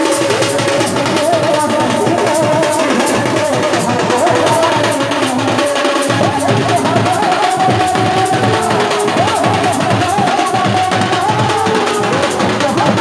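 Live Sambalpuri folk band playing loud over a PA: dhol drums keep a fast, steady beat under a wavering melody line.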